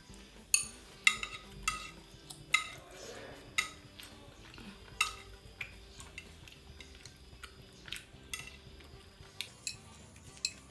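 Metal eating utensils clinking and scraping against a bowl while noodles are eaten: about a dozen sharp, ringing clinks at an uneven pace.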